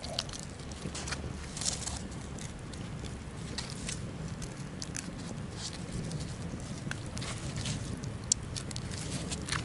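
Soft, scattered clicks and rustles of hands and a small Swiss Army knife working a trout on a leaf while cleaning it, with one sharper click near the end, over a steady low background noise.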